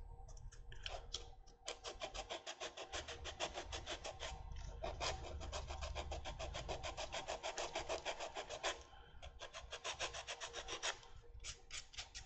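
Sanding stick scraped back and forth against the 2 mm frame of a small model aircraft fuselage, in quick even strokes about five a second, broken by short pauses near the start, at about nine seconds and near the end.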